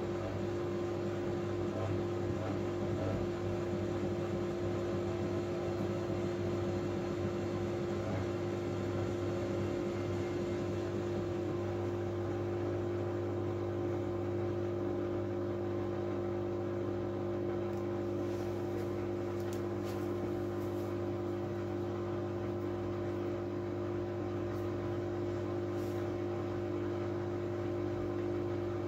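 Miele W433S washing machine running with a steady, even hum made up of several constant tones, unchanging throughout.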